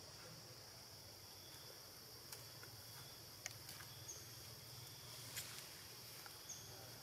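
Near-silent outdoor ambience: a faint, steady high insect drone, with a few faint clicks and two short high chirps.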